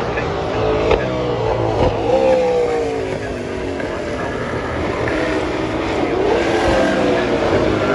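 A pack of historic touring race cars driving past at speed, several engines overlapping, their notes rising and falling in pitch as the cars change gear and go by.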